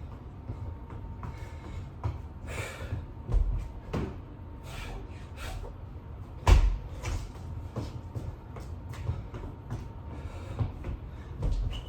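Irregular thumps and knocks of hands and feet landing on the floor during burpees with push-ups. The heaviest thump comes about six and a half seconds in.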